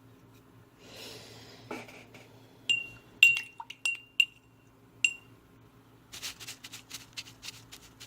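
Several light glass clinks, each ringing briefly at the same high pitch, followed by a run of quick scratchy strokes of a paintbrush working over a plaster tile.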